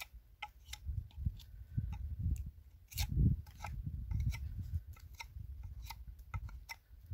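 Knife blade shaving and cutting green wood while a mallet is carved, heard as a string of short, irregular clicks and scrapes, with a low rumble underneath.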